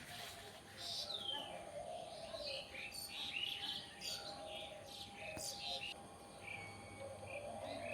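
Several birds chirping and calling in short, quick notes, some as falling whistles, over a steady faint tone.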